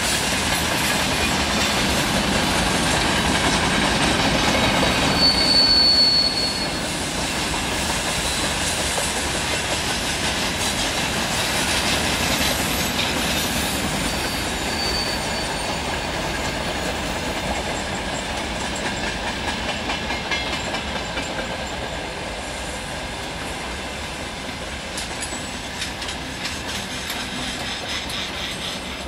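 Freight train wagons rolling past, their wheels running steadily over the rails, with a brief high squeal about five seconds in and a fainter one later; the sound slowly fades as the tail of the train moves away.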